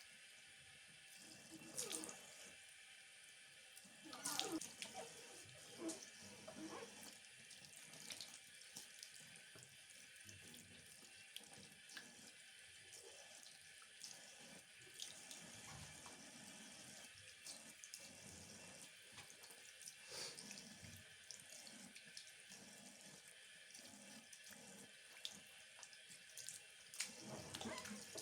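Water tap running steadily into a sink, with a few short knocks and clinks over the flow.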